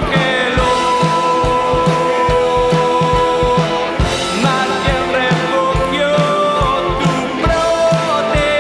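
Rock song: a singing voice holding long notes over guitar and a steady drum beat.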